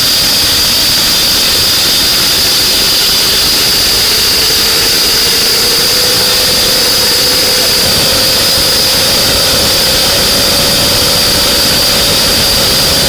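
Homemade jet engine running with a constant compressed-air jet blowing into its inlet: a loud, steady rush of air with a high whistle. Underneath, a fainter tone rises over several seconds and then holds. This is the engine's shaft speeding up even though the air jet stays the same, a sign that the heated air in the combustion chamber is producing torque.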